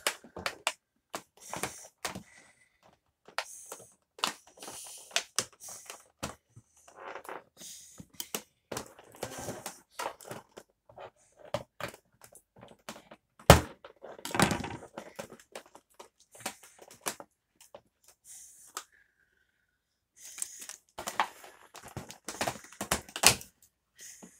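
Cardboard toy packaging being opened and the figure pulled free of its insert: irregular rustling, scraping, small clicks and knocks, with one sharp loud click about halfway through.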